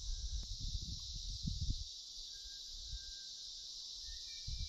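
Steady high-pitched insect chorus in the bush, with low rumbling on the microphone in the first two seconds and again near the end.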